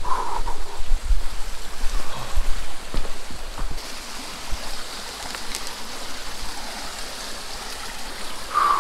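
Fast-flowing stream running over rocks: a steady rushing hiss of water. Low thumps on the microphone in the first few seconds.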